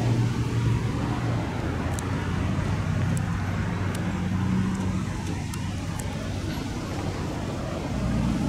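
Steady low rumble of road traffic and a slow freight train moving off, with a low hum that eases after about five seconds.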